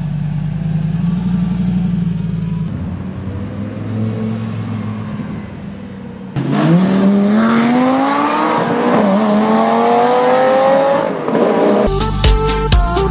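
Lamborghini Gallardo V10 engine running at low revs, then about six seconds in a sudden loud acceleration with the pitch climbing steadily, a brief dip near nine seconds as it shifts up, then climbing again. It cuts to electronic music with a steady beat in the last second.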